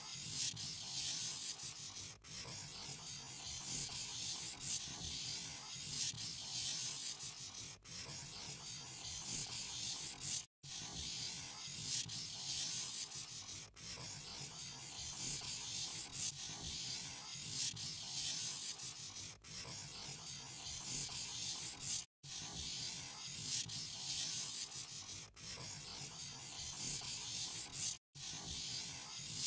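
Scratchy rubbing of a drawing tool on paper, going on steadily as lines are drawn, broken by short silent gaps every few seconds.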